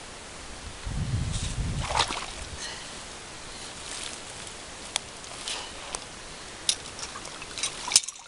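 Water sloshing and trickling, with a low rumble about a second in and a few sharp clicks and knocks scattered through.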